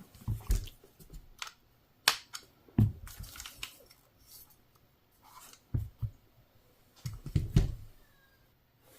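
Scattered sharp clicks and light knocks, a handful spread over several seconds, from metal handguard parts being handled and adjusted on an air carbine.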